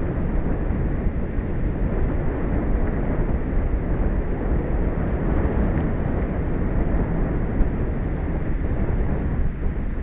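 Steady low rumble of wind and sea, buffeting the microphone, with no distinct events.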